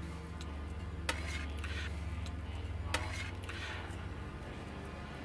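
Knife blade mixing dough on a metal baking sheet: irregular clinks and taps of steel on the tray, with a few short scrapes.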